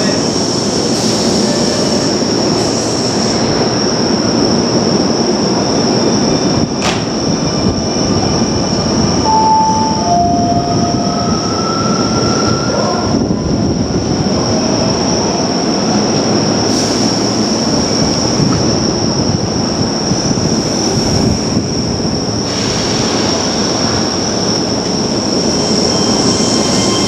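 Keio Line electric commuter train running on the rails: a continuous steady rumble with a high whine held throughout, a sharp click about seven seconds in, and short wheel squeals a few seconds later.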